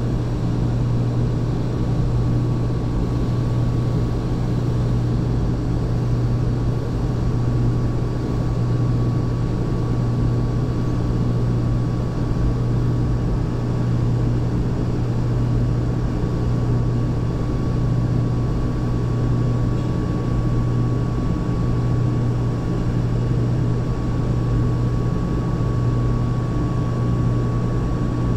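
Steady drone of running industrial machinery: a deep, even hum with a faint high whine above it.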